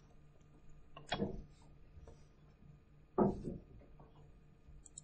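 Two short knocks and scrapes of a stylus on a tablet screen, about two seconds apart, as a percent sign is handwritten.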